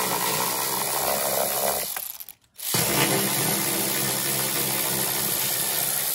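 Cordless electric ratchet with a 13 mm socket running steadily, backing out the bolts of a mower deck's belt cover. It stops for a moment about two and a half seconds in, then runs again.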